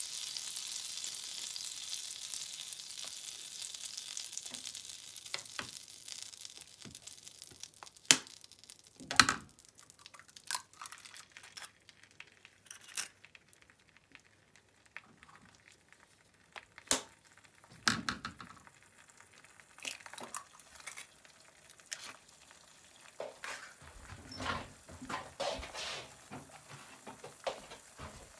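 Melted butter sizzling in a nonstick frying pan, a steady hiss that dies down over the first several seconds. Then there are scattered sharp knocks and crackles as eggs are cracked and dropped into the pan to fry, with the loudest knocks about a third of the way in.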